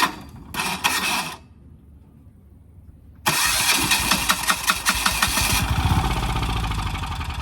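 Titan Industrial 5500 diesel generator being started after sitting for years: a short first crank, then about three seconds in the diesel catches and runs with a fast knocking that settles slightly a couple of seconds later.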